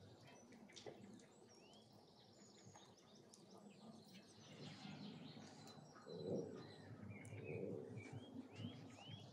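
Faint birdsong: many short rising chirps, thickest near the end, over soft low handling sounds, the loudest a few seconds before the end, as raw lamb strips are laid into a pan.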